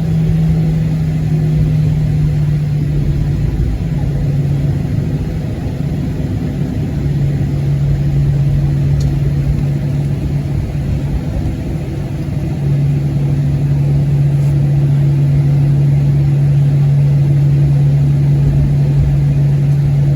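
Boeing 737-700 cabin drone on the ground: a steady, loud low hum of the aircraft's engines and air systems, its pitch shifting slightly a few times.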